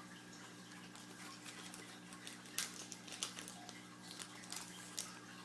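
Faint clicks and ticks of trading cards being handled and flipped through, a few sharper ones about two and a half, three and five seconds in, over a steady low hum.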